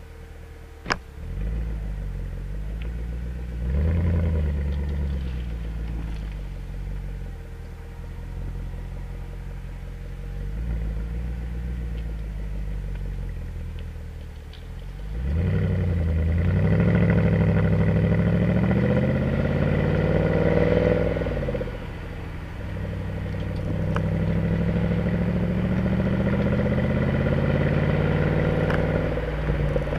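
Mercedes-Benz C63 AMG estate's V8 exhaust heard right at the tailpipes: a low engine rumble with a sharp click about a second in and short rises in revs near 4 and 11 seconds. About 15 seconds in it accelerates hard, the pitch climbing for several seconds, then drops off and settles into a steady, louder drone.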